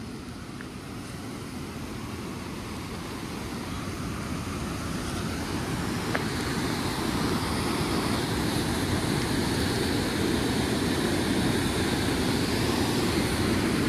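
Steady rushing of a fast glacial river, growing gradually louder.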